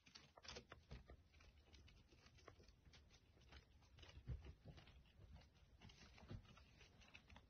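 Near silence with faint scattered ticks and scratches, the loudest about four seconds in: a hamster's claws gripping a painted wall as it climbs a corner.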